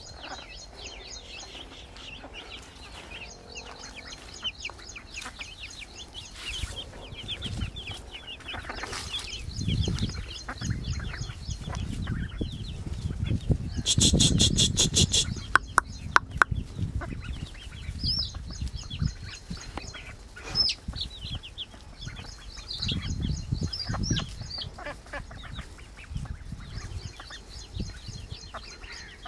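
Baby chicks peeping constantly in quick, high, falling cheeps. Near the middle comes a louder, harsher call of about a second and a half, followed by a few sharp clicks.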